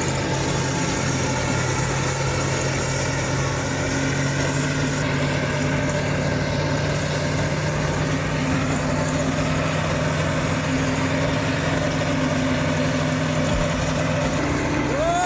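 Heavy diesel engine of earthmoving machinery running steadily at low speed. Near the end a short pitched tone rises, holds and falls away.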